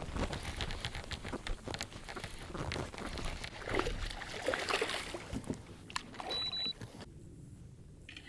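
Water sloshing and splashing around a kayak, mixed with irregular knocks and clicks of gear being handled. A short, high, steady beep sounds about six seconds in.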